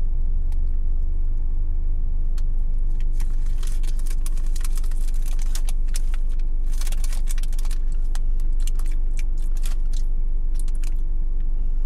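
Idling car engine heard from inside the cabin, a steady low rumble with a faint hum. From about three seconds in to near the end, a run of rapid light clicks and crackles sounds over it.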